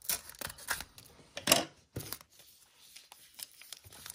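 Foil trading-card pack wrapper crinkling and rustling as it is handled, with a louder crackle about one and a half seconds in.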